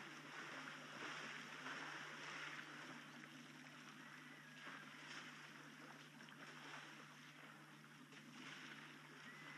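Faint splashing and sloshing of water as African elephants bathe and spray in a waterhole, over a steady low hum.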